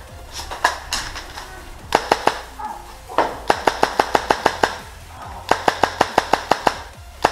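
Tippmann M4 airsoft rifle firing on semi-automatic in quick strings of sharp shots, up to about eight a second, with short pauses between strings.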